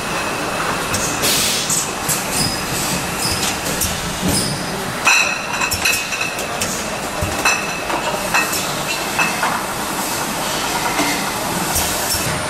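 Automatic four-nozzle chocolate-cream filling line running, with a steady mechanical clatter and frequent, irregular sharp clinks of glass jars knocking together on the conveyor.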